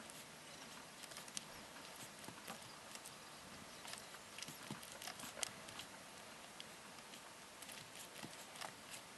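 Faint, irregular small clicks and light taps from handling a paintbrush and a plastic miniature while painting, over a steady hiss; they come most thickly in the middle, the loudest about five seconds in.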